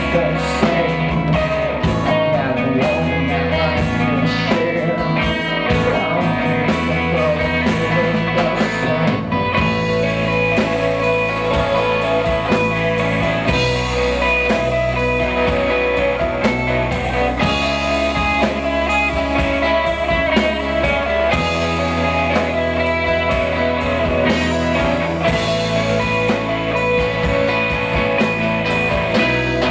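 Rock band playing live: electric and acoustic guitars over a drum kit, with a moving low bass line.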